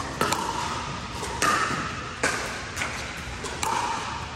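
About five sharp knocks, irregularly spaced, each leaving a short ringing tone that dies away.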